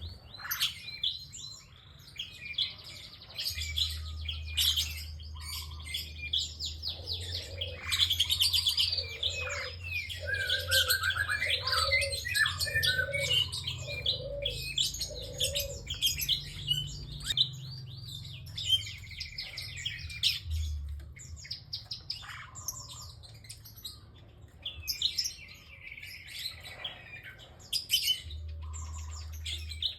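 Prinia (prenjak) singing continuously: rapid, sharp chirps and trills, with a series of six lower notes in the middle. A steady low hum runs underneath.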